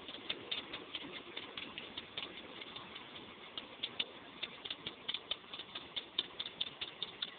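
Antique two-cylinder John Deere tractor engine running slowly, its firing heard as a rapid, uneven ticking of several pops a second.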